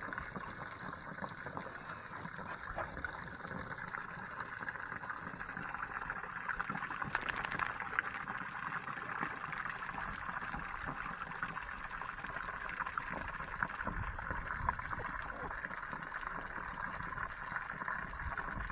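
A jet of water spraying and splashing down onto grass, a steady hiss of falling water.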